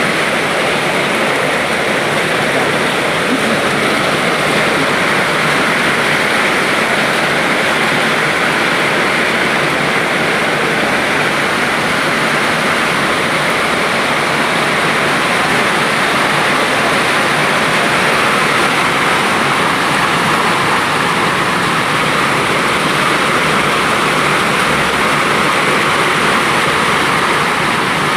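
Heavy rain falling, a loud, steady hiss with no letup.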